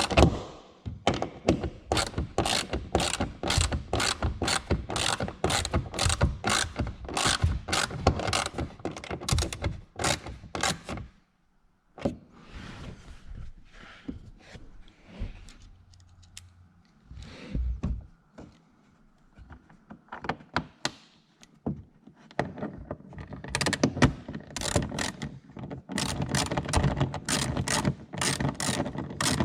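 Hand ratchet wrench clicking in rapid repeated strokes, turning a fastener during reassembly of the car's rear strut mounts and interior. It stops for a quieter stretch of scattered knocks and handling in the middle, then starts again near the end.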